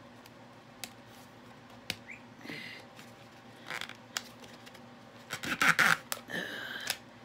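Sewing reed rubbing and scraping as it is worked and pulled through the woven rim of a reed basket, with scattered small clicks and a louder scraping rustle about five and a half seconds in.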